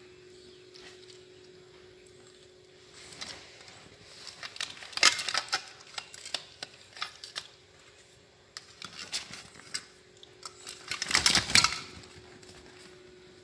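Hard plastic toys clattering and knocking together as they are handled on an inflatable pool's floor. The noise comes in two bursts: one around five seconds in, and a louder scuffling one around eleven seconds in, as a small monkey scrambles over the pool's vinyl wall. A faint steady hum runs underneath.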